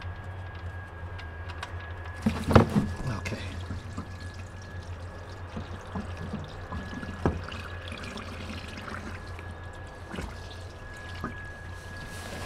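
Old engine oil gushing out of the open sump drain hole and pouring into a plastic drain pan. It starts with a splash about two seconds in and then runs steadily, with a few knocks of the pan being handled.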